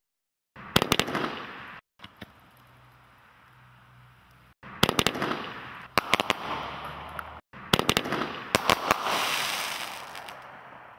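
'Two Thumbs Up' repeater fireworks cake firing: groups of sharp bangs from bursting aerial shells, each followed by a long noisy tail that fades. The sound cuts off abruptly several times between groups.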